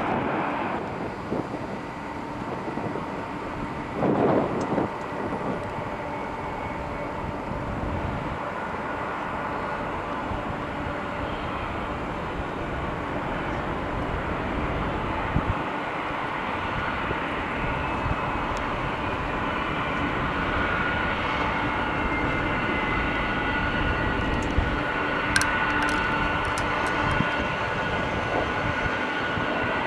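Distant jet engines of a taxiing Boeing 747 freighter: a steady rumble with a faint high whine, and a brief louder rush about four seconds in.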